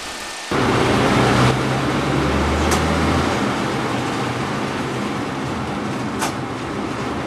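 Engine of a narrow-gauge railway motor coach running, a low hum under a steady rushing noise. It comes in suddenly about half a second in, with the hum deepest for the first few seconds, and two faint clicks later on.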